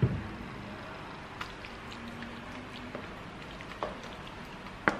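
Wooden spoon scooping meat sauce from a pot and spreading it into a foil lasagna tray: soft wet squishing with a few light taps, and a sharper knock near the end.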